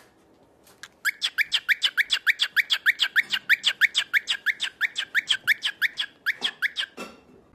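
A bird giving a fast, even run of short, sharp chirps, about eight a second, starting about a second in and slowing into a few separate calls near the end.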